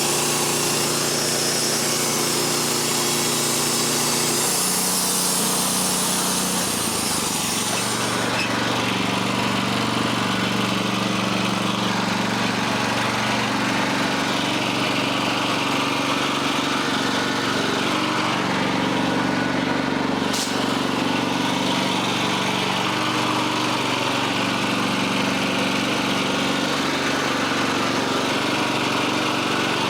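Wood-Mizer band sawmill's engine running steadily, its pitch shifting a few seconds in. A high hissing sawing sound goes with it for the first eight seconds or so, then stops, leaving the engine alone.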